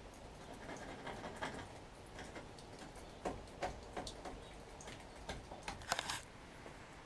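Scattered light taps, clicks and scrapes of gloved hands handling a fibreglass boat hardtop, with a sharper cluster of knocks near the end.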